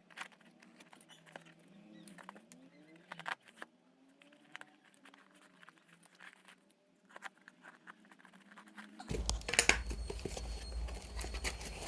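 Plastic product packaging being handled and opened: faint scattered rustles and clicks, turning into louder crinkling about nine seconds in.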